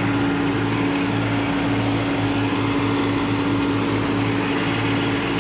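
Tractor engine running at a steady speed, a constant drone with an even low throb underneath.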